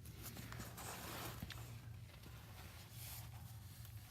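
Quiet handling noise: faint rustles and small clicks as the camera is moved about, over a low steady hum.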